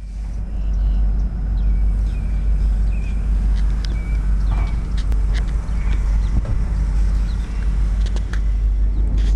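Motorcycle engine idling, a steady low rumble, with a few faint short high chirps over it.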